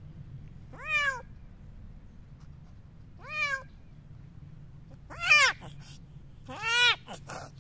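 A kitten trapped in netting meowing in distress: four separate cries, each rising then falling in pitch, the last two loudest. A few faint clicks near the end.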